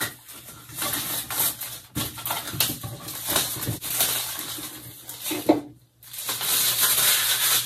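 Plastic wrapping crinkling and rustling as it is peeled off a small canvas print, a dense crackle that grows louder near the end.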